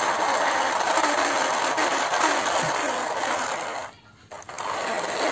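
Battery-powered plastic toy excavator whirring steadily as its small electric motor and gears run; it cuts out briefly about four seconds in, then starts again.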